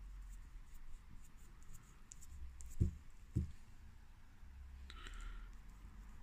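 Paintbrush strokes on a model building's tiled roof: faint scratchy brushing and clicking of the bristles. Two low thumps come close together a little before halfway.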